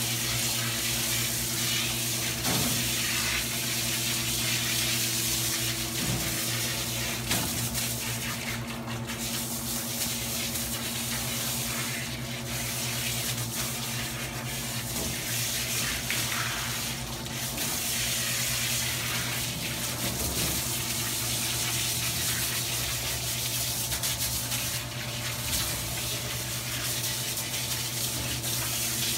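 Water spraying from a hand-held sprayer hose onto a wet dog's coat and splashing into a stainless steel grooming tub, with a steady low hum underneath.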